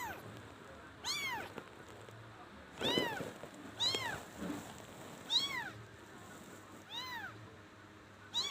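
Kitten meowing repeatedly, about seven short high-pitched meows, each rising then falling in pitch, roughly one every second or so.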